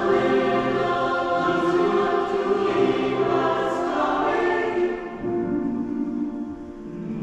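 Mixed choir of men's and women's voices singing held notes, loud at first and falling back to a softer passage about five seconds in.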